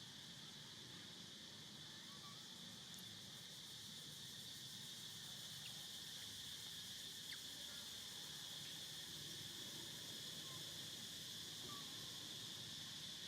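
Faint, steady, high-pitched insect chorus buzzing without a break, with a few soft short chirps and ticks over it.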